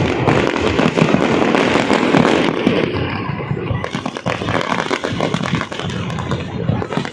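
Fireworks display: a dense, continuous run of rapid bangs and crackles, easing slightly about three seconds in.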